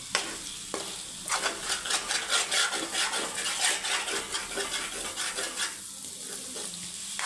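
Mutton frying in oil in a kadai on a low flame, sizzling. A metal spoon stirs and scrapes the pan bottom to keep the meat from sticking, in a run of quick scraping strokes that ease off near the end.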